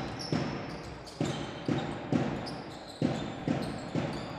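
A basketball being dribbled on a hardwood court, bouncing about twice a second, each bounce echoing in the hall.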